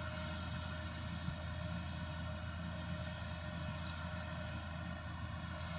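Steady drone of a ROPA Tiger 4 self-propelled sugar beet harvester's diesel engine and machinery, running under load while lifting beets.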